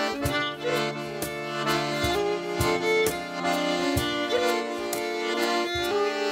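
Traditional Breton dance tune played on accordion and fiddle, with short sharp knocks scattered through the music.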